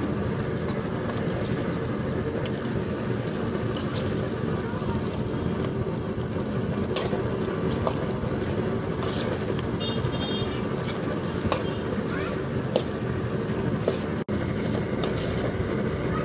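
Steel ladle stirring and scraping in an aluminium cooking pot, with irregular light clicks and scrapes of metal on metal, over a steady low rumble.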